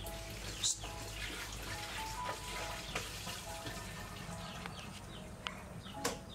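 Background music of short repeated notes, with quick high chirps and a few brief sharp clicks.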